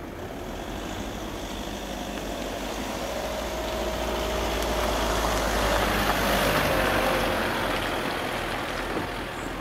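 A Škoda Octavia estate car approaching and driving past, its engine and tyre noise growing louder to a peak about six or seven seconds in, then fading as it pulls away.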